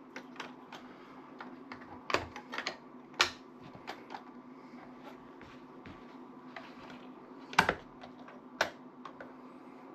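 Irregular light clicks and taps of computer parts being handled during a motherboard swap, with louder knocks a little after three seconds and at about seven and a half seconds, over a faint steady hum.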